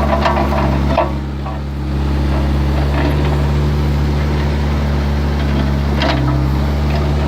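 Excavator engine running steadily, with a few short knocks and a brief drop in level about a second in.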